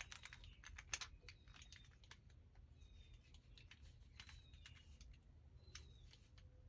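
Near silence with faint scattered clicks and light taps, and a few faint short high chirps.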